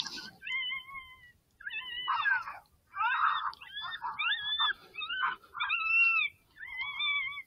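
A predator call playing a string of about eight short, whiny animal cries, each rising and falling in pitch, with short gaps between them.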